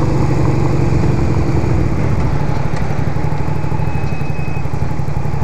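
Motorcycle engine running at a steady pitch while riding, under a continuous rush of wind and road noise.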